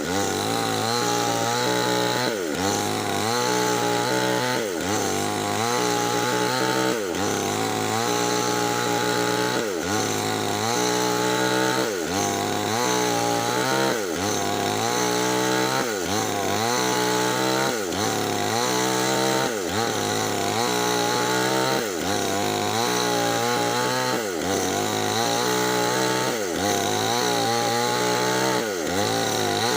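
Nixon chainsaw with a 25-inch bar running at high revs while ripping lengthwise through Medang wood. Its pitch sags under load and recovers about every second and a half as the cut goes on.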